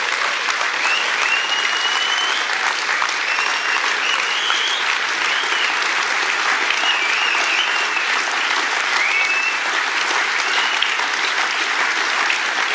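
Audience applauding steadily, a dense even clatter of many hands, with a few thin high gliding tones running through it.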